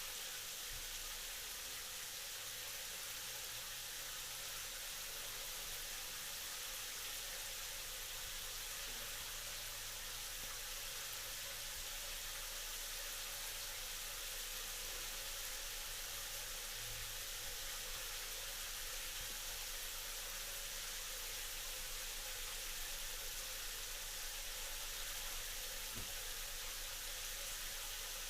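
Shower running: a steady, even hiss of water spray falling.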